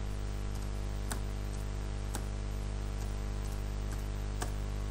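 Computer keyboard being typed on slowly: a handful of separate key clicks at irregular intervals over a steady low electrical hum.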